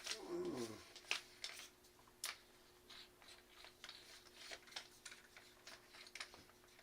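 Faint, irregular light clicks and scrapes of metal air-rifle stock parts being handled and screwed together by hand. There is a brief falling tone right at the start.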